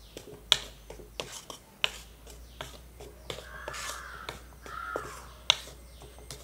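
Wooden spatula scraping and knocking against an aluminium pan while dry-roasting powdered fried gram and sugar, with several sharp knocks. A crow caws twice past the middle.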